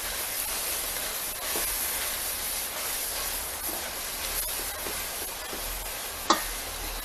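Chorizo frying in its own fat in a dry enamel pot, a steady sizzle, with a metal spoon stirring and breaking it up. About six seconds in there is one sharp clink as the spoon strikes the pot.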